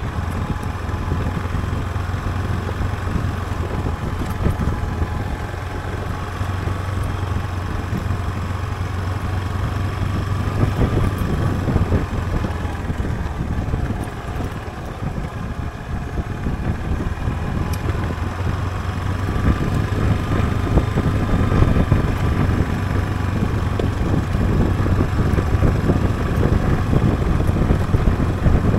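Yamaha Serow dual-sport motorcycle's single-cylinder four-stroke engine running steadily under way. The engine note eases off about halfway through and then picks up again.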